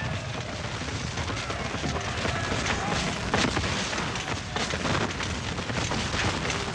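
Battle sound effect: a continuous crackle of musket volleys mixed with cannon booms, and men's voices shouting under the gunfire.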